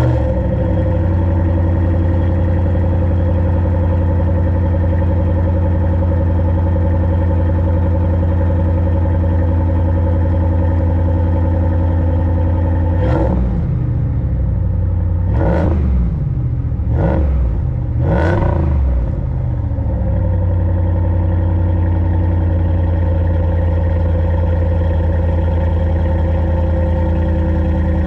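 2014 Ram 1500's 5.7-litre Hemi V8, heard at the exhaust tip, idling steadily just after a cold start at 26 degrees. About halfway through it is revved four times in quick succession, then settles back to a steady idle.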